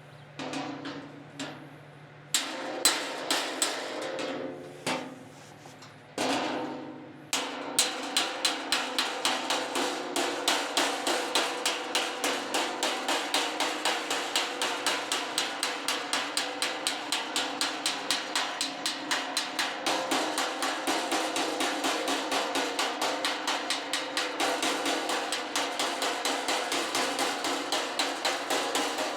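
Body hammer tapping out the 2023 Hyundai Palisade's steel fender over a dolly. A few scattered blows come first, then from about seven seconds in a steady run of sharp taps at about three a second.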